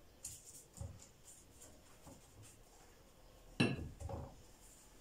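Kitchen handling noises as phyllo sheets are laid into a baking dish: soft rustles and light taps, with one sharper knock against the dish about three and a half seconds in and a softer one just after.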